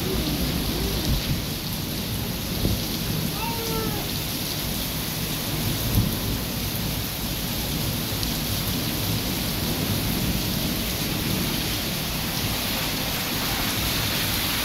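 Heavy rain falling steadily: a dense, even hiss with a strong low rumble beneath it, and a single brief knock about six seconds in.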